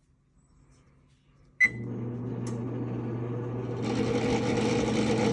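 Electric double oven starting a bake cycle. A short beep and click come about a second and a half in, and then a fan motor starts humming. A louder rush of moving air joins about four seconds in.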